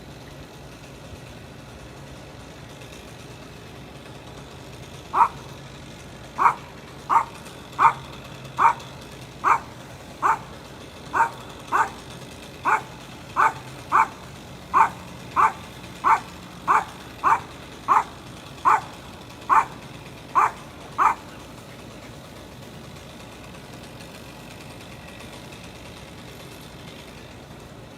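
A dog barking over and over, about twenty sharp barks at a little more than one a second, starting about five seconds in and stopping a few seconds after the twenty-second mark, over a faint low engine hum.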